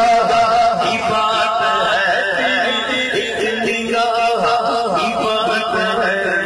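A man singing a naat, an Urdu devotional praise song, into a handheld microphone over a sound system, holding long, wavering, ornamented notes.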